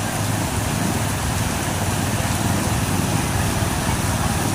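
Steady road-traffic noise: a continuous low rumble of vehicles with a hiss over it, and no distinct events.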